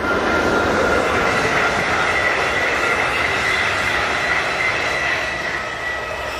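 Railway train passing, its wheels rolling with a broad rumble and steady high-pitched tones riding above it; loudest from about a second in.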